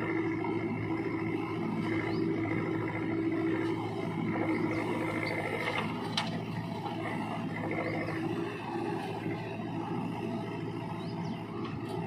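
Backhoe loader's diesel engine running steadily under load while its backhoe arm works, with a sharp knock about six seconds in as the bucket dumps soil into the tractor trolley.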